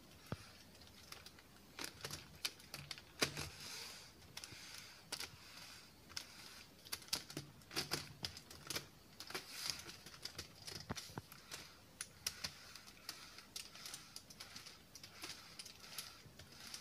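Plastic pieces of a Rayminx twisty puzzle clicking and clattering as its faces are turned by hand, in an irregular run of sharp clicks, the loudest about three seconds in.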